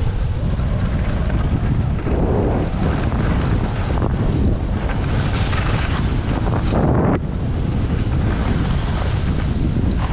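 Wind rushing over a helmet-mounted camera's microphone during a downhill ski run, mixed with the hiss and scrape of skis on packed, chopped-up snow. The higher hiss drops away sharply about seven seconds in.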